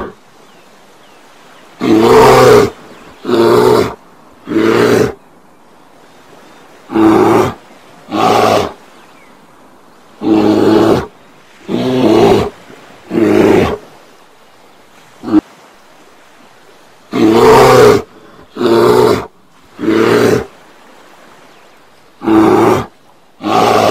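Bear giving a series of loud, harsh growling roars, each about half a second to a second long. They come mostly in groups of two or three with short pauses between, about fourteen in all, one of them very brief.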